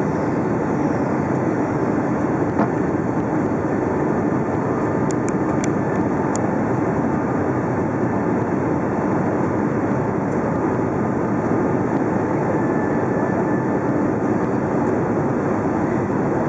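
Steady cabin noise inside a Boeing 757-200 airliner on approach: an even rush of airflow and engine noise, heard from a window seat over the wing, with no change in level.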